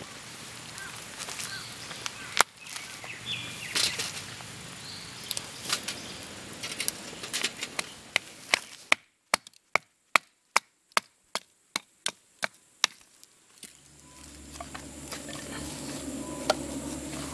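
Wood being chopped at camp: scattered sharp knocks, then a run of about a dozen quick, evenly spaced strikes, roughly three a second. A steady low hum starts near the end.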